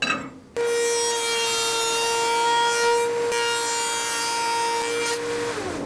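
H1763 spindle moulder cutting a board with a combination mitre-joint cutter: a steady high whine over the noise of the cut, starting abruptly about half a second in and dropping away near the end.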